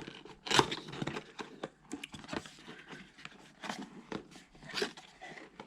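Cardboard camera box being opened and its contents handled: irregular clicks, scrapes and crinkling of card and paper packaging, with a sharper snap about half a second in.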